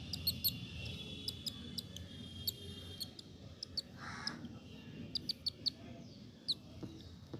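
Baby squirrel giving rapid, high-pitched chirps, short and sharp, in irregular runs of several a second.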